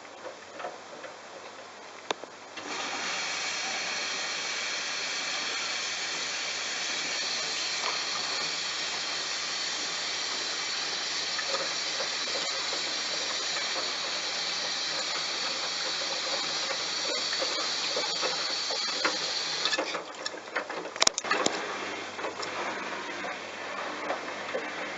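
Bosch washing machine taking in water through its inlet valve: a steady rushing hiss starts a few seconds in and cuts off abruptly about twenty seconds in. A few sharp clicks and knocks follow.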